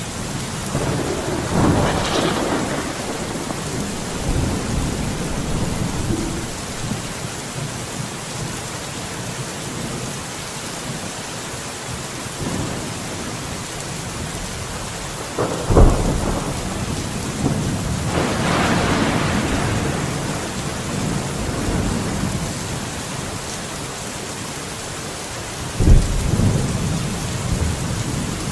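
Steady rain with rolling thunder: several long rumbles swell and fade, and two of the peals open with a sharp, close crack.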